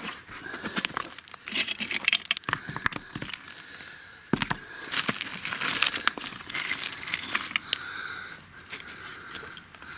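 Broken concrete rubble and grit crunching and clinking as it is shifted. It comes as a dense run of irregular crackles and sharp clicks, with no steady hammering rhythm.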